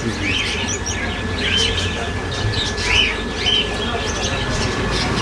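Caged finches chirping, short arched calls repeated about once a second, over a steady low rumble.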